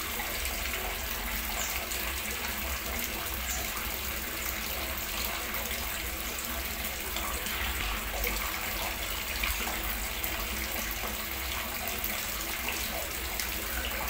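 A steady hiss with a low hum underneath, even throughout.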